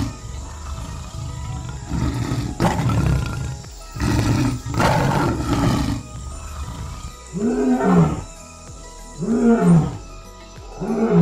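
Lion roaring: a few long, rough roars, then three shorter roars that rise and fall in pitch, about a second and a half apart, near the end.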